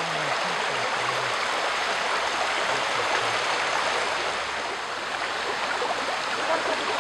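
Small shallow stream running over stones: a steady, even rushing of water.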